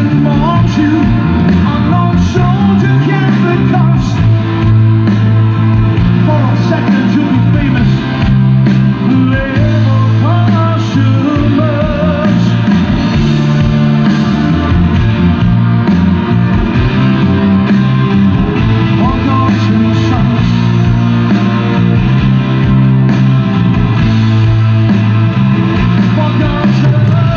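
A live progressive rock band playing through a large PA: drums, bass, keyboards and electric guitars, heard from the crowd. Held low bass notes run under a bending lead melody line.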